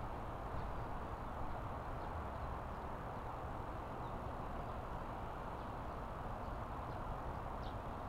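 Outdoor nature ambience: a steady, even rushing noise with a few faint, short high chirps scattered through it.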